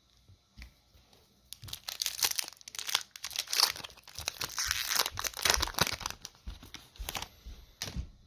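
A foil Magic: The Gathering booster pack wrapper being torn open and crinkled by hand, a dense crackling tear lasting a few seconds and then trailing off into a few rustles and clicks.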